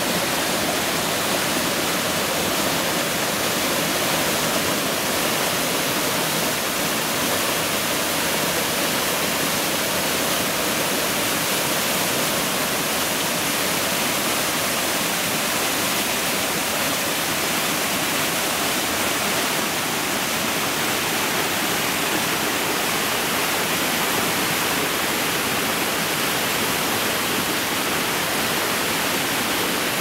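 Stream water cascading over rock ledges in small waterfalls: a steady, unbroken rush of whitewater.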